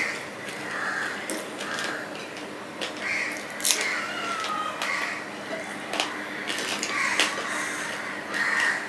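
Close-up eating sounds of a man eating rice and curry by hand: wet chewing, lip smacks and clicks of the mouth. Short calls sound now and then in the background.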